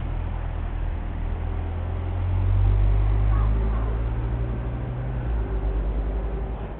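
Honda VFR800 V4 engine idling steadily, a low even rumble that swells louder about two seconds in and eases back about five seconds in.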